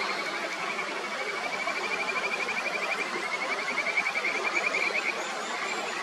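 Mountain stream rushing steadily, with kajika frogs (Buergeria buergeri) calling over it in high, fast trills that come in phrases a second or two long with short breaks between them.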